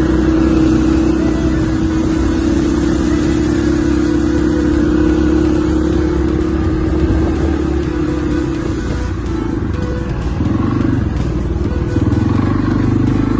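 ATV engine running steadily as the quad rides along a bumpy dirt trail, with rumble and rattle. The engine note eases off about two-thirds of the way through and picks up again near the end.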